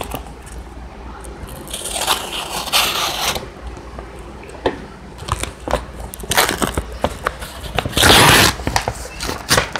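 A heavily taped manila envelope being torn open by hand: packing tape and paper ripping and crinkling, with scattered crackles. There is a longer tearing stretch about two seconds in and the loudest rip about eight seconds in.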